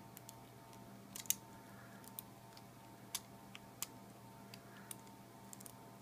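Lock pick and tension wrench clicking and scraping faintly inside a discus padlock as it is picked: about a dozen small, irregular metal clicks, the loudest a quick cluster about a second in.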